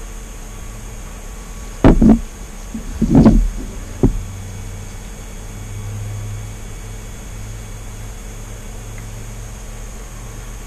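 A few loud, sharp knocks and bumps, about two, three and four seconds in, over a steady background hum.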